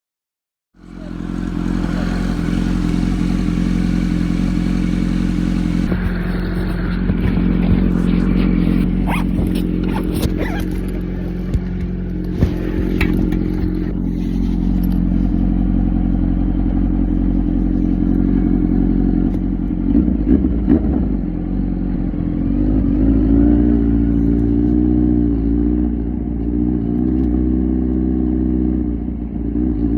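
Kawasaki Z900's 948cc inline-four engine with an SC Project exhaust starting to be heard about a second in, running at a steady idle. Scattered clicks and knocks come through in the middle, and in the last third the engine's pitch rises and falls gently with small changes of throttle.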